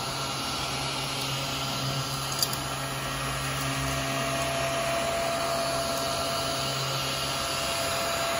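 Battery-powered (AA) Pusheen mini desk vacuum running steadily with a motor hum and whine while it is pushed over a wooden tabletop. There is a single sharp click about two and a half seconds in.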